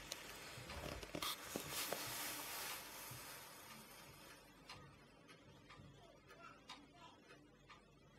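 Quiet room tone: a faint hiss that fades away over the first four seconds or so, then only a few small scattered clicks.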